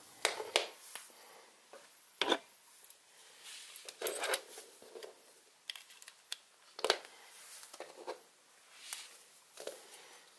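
Scattered light clicks and rustles of plastic parts and cables being handled while a USB cable is plugged into a small plastic car charger.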